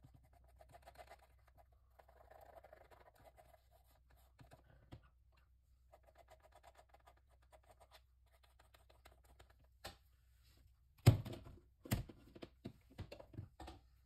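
Faint scratching and rubbing on a textured acrylic painting, then a few sharp knocks near the end, the first of them the loudest.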